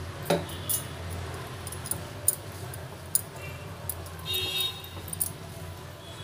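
A wooden spatula stirring a thick, wet rice-and-lentil mixture in a pan, with irregular sharp clicks and knocks as it scrapes and taps against the pan, over a steady low hum.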